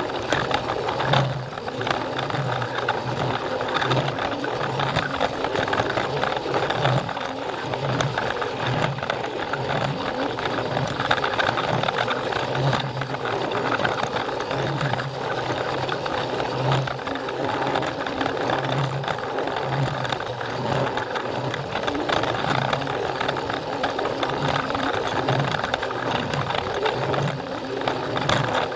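Plarail battery toy train running on plastic track: its small electric motor whirring and the wheels rattling, with a low pulse recurring about once a second.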